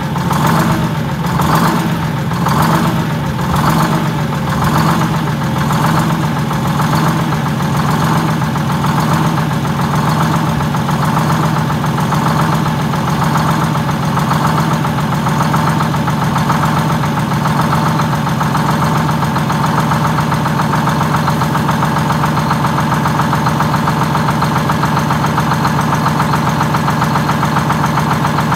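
Detroit Diesel two-stroke diesel of a GM 4104 bus idling just after a cold start. At first the idle swells and sags about once a second, then over the next ten or so seconds it evens out into a steady idle.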